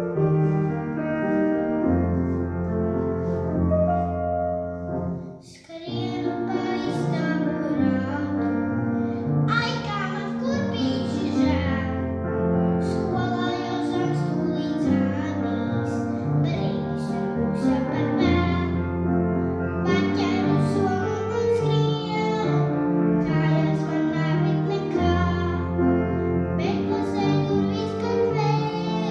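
Grand piano playing alone, a brief pause about five seconds in, then a young girl singing a children's song in Latvian with the piano accompanying her.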